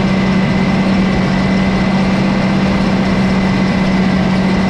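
1970s Versatile self-propelled swather running steadily in the field, a loud even engine hum with a faint high whine above it.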